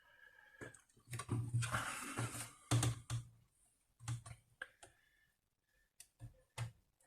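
Scattered clicks and light taps of hands working on an opened laptop's plastic parts and connectors while freeing its flat ribbon cables, with a short scrape about a second in.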